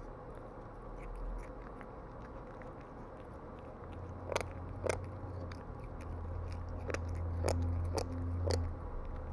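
Bengal cat chewing soft food, with sharp, wet clicking chews: faint ones at first, then six loud clicks in the second half, the last four about half a second apart.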